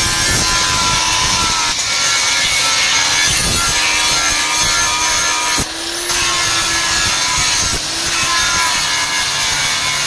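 DeWalt angle grinder running steadily with its abrasive disc grinding the steel of a bolo blade, its motor whine held over the rasp of the grinding. The sound dips briefly twice, near the middle and later on.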